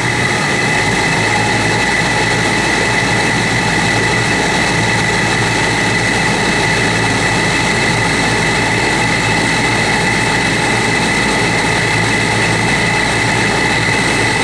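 Goodman GPH1442M package heat pump just started and running steadily: compressor and outdoor fan with a broad rush of air and a steady high-pitched whine on top.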